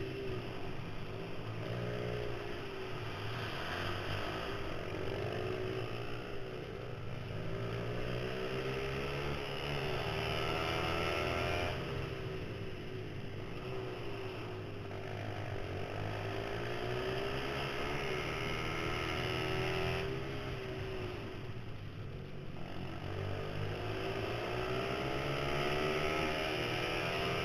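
Mini supermoto pit bike's small single-cylinder four-stroke engine revving hard, heard from the rider's helmet. The pitch climbs and falls with the throttle, dropping away twice when the rider backs off for corners before winding up again.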